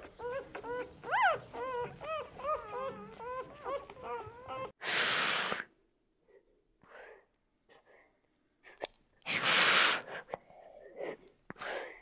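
A palm civet gives a rapid run of short whining, squealing calls that rise and fall. Then an Asian water monitor hisses twice, each hiss about a second long, about five and about nine and a half seconds in, with softer breaths between.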